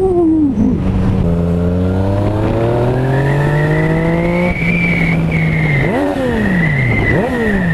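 Yamaha MT-09 Tracer's three-cylinder engine running through a newly fitted Giannelli full-system aftermarket exhaust while riding. It accelerates with the pitch climbing steadily for about three seconds, then revs up sharply and falls away twice near the end.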